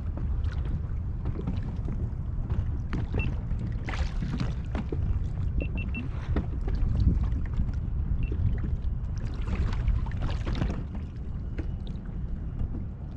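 Water lapping and slapping against a fishing kayak's hull, over a steady low rumble, with many small scattered knocks and clicks.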